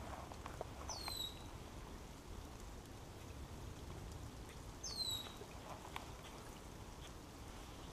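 Light rain pattering on pond water, with scattered soft drip ticks. Twice, about a second in and again about five seconds in, a bird gives a short, high squeaky call that slides downward.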